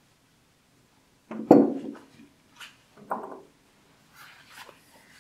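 A comb being drawn through a golden retriever's long leg feathering in faint, short strokes, with two dull knocks about one and a half and three seconds in.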